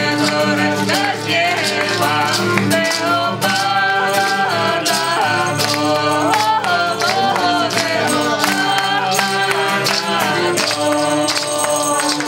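A group of men singing a song together over instrumental accompaniment with held notes, while percussion keeps a steady beat.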